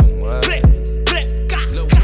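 Hip hop music: a beat with a steady deep bass, hard kick-drum hits and ticking hi-hats.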